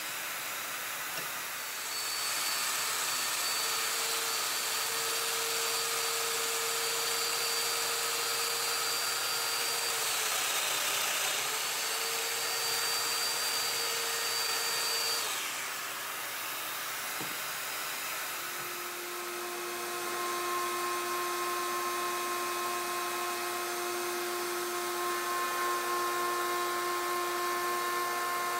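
Festool Domino joiner running with a steady high whine. Its pitch sags briefly partway through as the cutter plunges into the walnut under load, then it spins down. A dust extractor draws through the hose throughout, and a different steady motor hum takes over in the last third.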